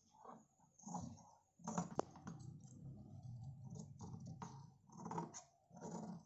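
Large tailor's scissors snipping through cotton fabric: a series of short cuts about once a second, with one sharp click about two seconds in.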